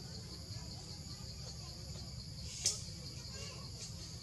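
Steady pulsing trill of insects in the trees, high-pitched and continuous, with a single sharp click about two-thirds of the way through.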